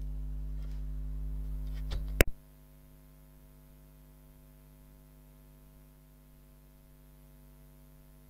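Steady electrical mains hum in the recording, with a few faint clicks, then one sharp click about two seconds in. After the click the hum carries on much fainter.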